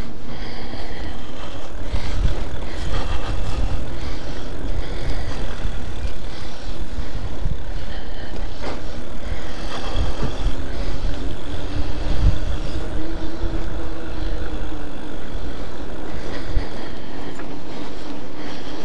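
Electric bike riding along, its motor whining faintly, the pitch rising and falling with speed. Under it run a steady rumble of tyres on rough tarmac and wind buffeting the microphone.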